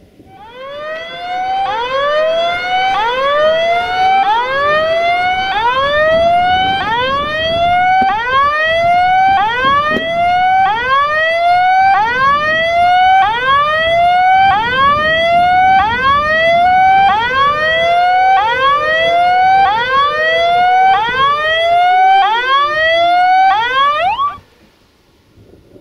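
Level-crossing warning signal sounding while the barriers are down: an electronic tone that sweeps upward about once a second, over and over, warning of an approaching train. It cuts off suddenly near the end.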